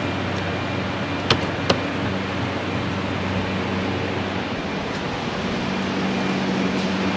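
A steady machine hum with an even hiss, of the fan or air-conditioning kind, with two light clicks close together about a second and a half in.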